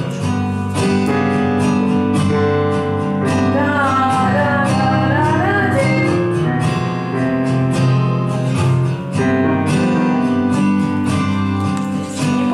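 Instrumental backing track with plucked acoustic guitar and a melody line, played over the room's speakers.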